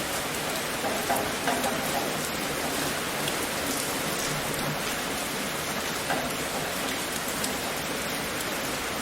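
Steady rain falling and pattering on a surface, a dense even hiss with scattered louder drops, a few of them a little over a second in and again around six seconds in.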